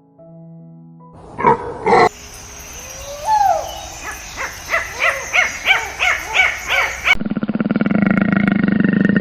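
A string of different animal calls cut together: a short loud call, then a run of repeated rising-and-falling calls about twice a second, changing near the end to a steady, rapidly pulsing growl-like sound.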